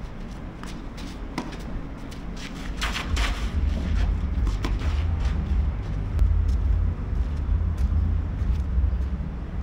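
Tennis rally on a clay court: a scatter of short sharp pops from racket strikes and ball bounces. A steady low rumble gets much louder about three seconds in and is the loudest thing.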